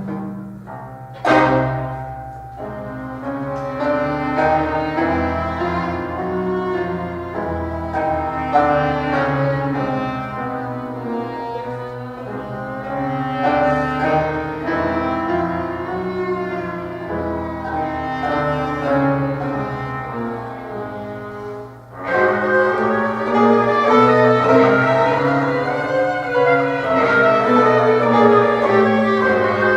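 Small live chamber ensemble of violin, clarinet, trombone, cello or piano and percussion playing silent-film photoplay music. A sharp percussive hit comes a little over a second in. The music drops off briefly about 22 seconds in, then comes back louder.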